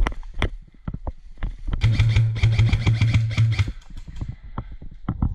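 Airsoft gun firing a rapid full-auto burst lasting about two seconds, a fast stream of cracks over a low motor-like hum, with scattered single sharp clicks before and after.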